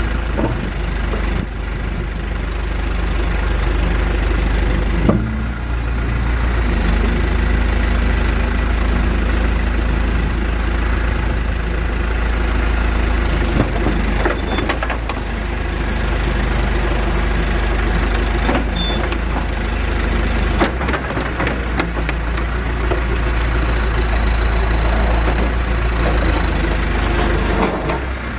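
2005 John Deere 410G backhoe loader's diesel engine running steadily, with a few short knocks and clanks along the way.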